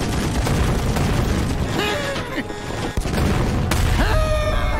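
Cartoon tank cannons firing in a sustained barrage, with a continuous rumble of blasts and explosions and a couple of sharp cracks a little after the midpoint.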